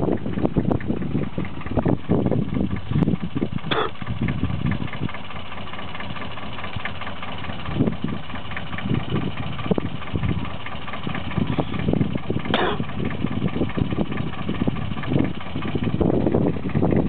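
Small vintage tractor's engine running at low speed as the tractor moves slowly with a round hay bale on its rear lift; the sound is uneven. Two brief sharp sounds cut through it, about four seconds in and again about twelve seconds in.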